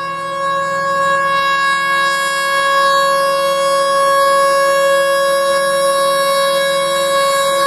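Diesel locomotive horn sounding one long, unbroken steady blast, growing louder as the train approaches.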